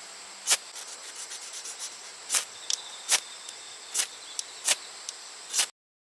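Ferrocerium rod fire starter struck repeatedly with its scraper: about nine quick, sharp scrapes at irregular intervals, throwing sparks. A steady high insect trill sounds behind them, and everything cuts off abruptly near the end.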